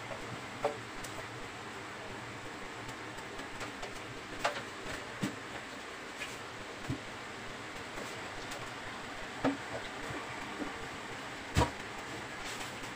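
A slaughtered chicken being plucked and handled by hand in a stainless steel sink: a few scattered sharp taps and knocks against the sink over a steady background hiss, the loudest knock near the end.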